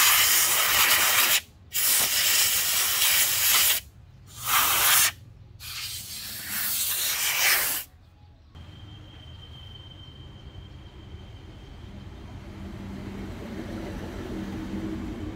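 Four loud hissing blasts of pressurised air or spray from a nozzle, each one to two seconds long with short gaps. They are followed by a quieter low steady hum with a faint high whine that slowly grows.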